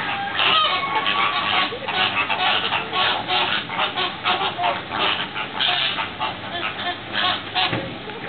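A flock of flamingos honking: many short, goose-like calls overlapping in a continuous chatter.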